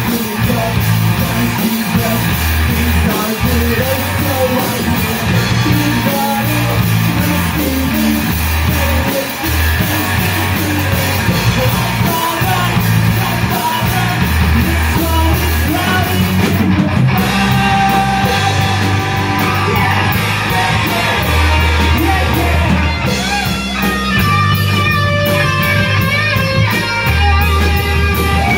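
Live punk/emo rock band playing: lead vocals over electric guitar, bass guitar and a drum kit.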